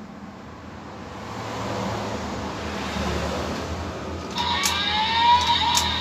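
DX Desire Driver toy belt with Water and Boost Raise Buckles playing its electronic sound effects through its small speaker. A noisy rush swells from about a second in. Near the end it gives way to pitched electronic tones with gliding notes and a few sharp clicks.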